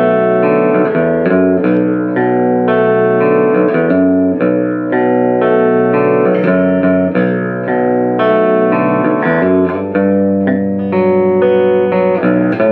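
Squier Paranormal Baritone Cabronita Telecaster, a baritone electric guitar with single-coil pickups, played on its bridge pickup: a continuous run of picked notes and chords.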